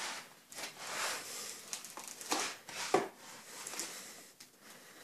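Foam packing end caps and plastic wrap rustling and rubbing as they are pulled off a small boxed device, with a few short sharper scrapes in the middle.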